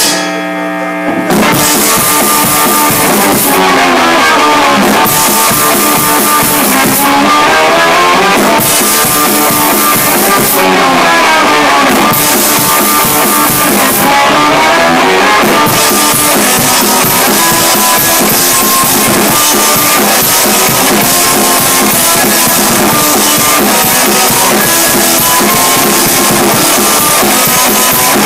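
Rock band jamming loudly with guitar and drum kit. It thins to one held low note for about a second at the start, then the full band comes back in and plays on steadily.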